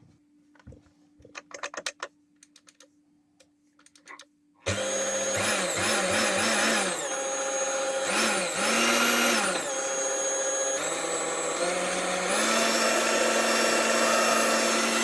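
A few light clicks, then a Laretti kitchen mixer's electric motor starts suddenly about four and a half seconds in. Its speed rises and falls several times and then steps up to a steady higher speed, showing that the repaired speed control works again.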